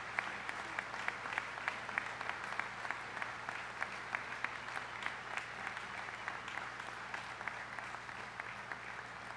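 Audience applauding, a dense wash of clapping with one nearby clapper's sharp claps standing out about three times a second; the applause slowly dies down near the end.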